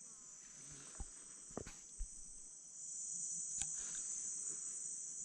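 Steady, high-pitched insect chorus of the rainforest, growing louder about three seconds in, with a few soft clicks and rustles close by.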